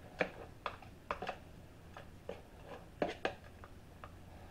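Metal spoon spreading sauce in a metal springform pan, making irregular light clicks and taps.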